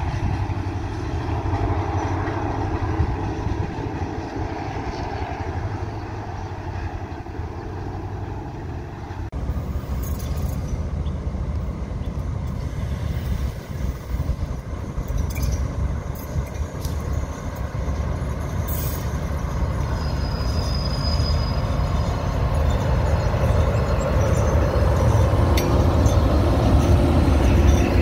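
Diesel-hauled freight train approaching with its engine running steadily; after about nine seconds it switches to another locomotive-hauled train whose wagons roll past close by, the rumble of wheels on rail growing louder toward the end, with occasional short clicks.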